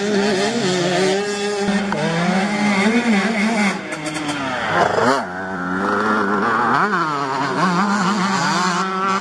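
Two-stroke motocross bikes racing on a dirt track, several engines at once, revving up and down as the riders open and close the throttle; one engine dips sharply and picks up again about five seconds in.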